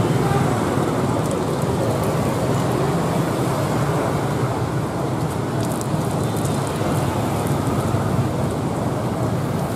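Steady street background noise: an even rumble and hiss with no clear single source.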